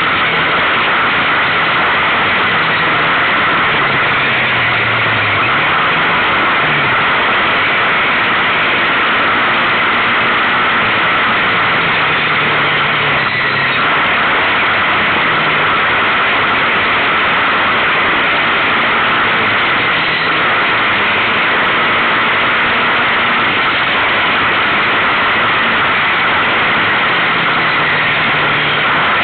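Onboard sound of a Kawasaki KFX700 quad's V-twin engine at speed on a rough dirt track, its pitch rising and falling again and again with the throttle. A loud, steady rush of wind on the exposed microphone covers much of the engine note.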